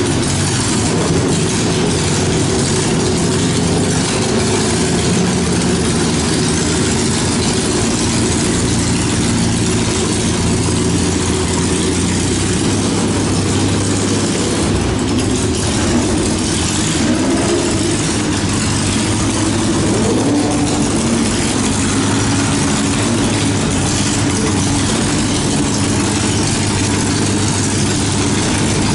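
Open-wheel race car engine idling steadily, its pitch wavering briefly about halfway through.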